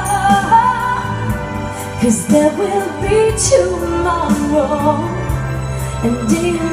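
A woman singing a song live into a handheld microphone over amplified backing music with bass and a steady beat.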